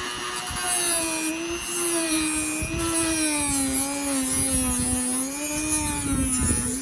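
Handheld electric power tool running continuously, its motor pitch dipping and recovering as it is pressed into the wood.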